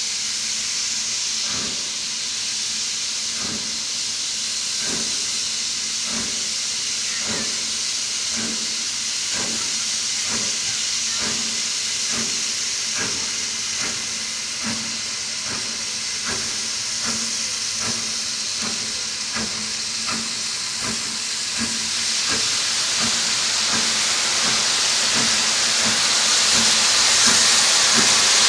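Steam locomotive working steadily towards the listener: regular exhaust chuffs, a little over one a second and slowly quickening, over a steady hiss of escaping steam that grows louder near the end as it comes closer.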